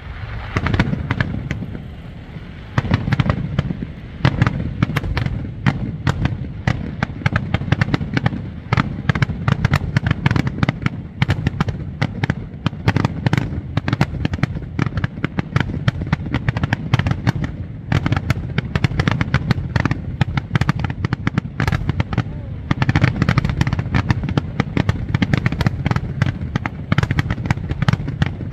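Aerial fireworks: a rapid, continuous barrage of shell bursts and crackling, growing denser a few seconds in.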